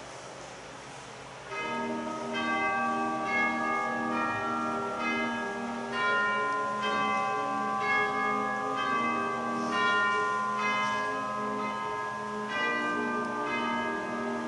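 Church bells ringing a run of overlapping notes that begins about a second and a half in.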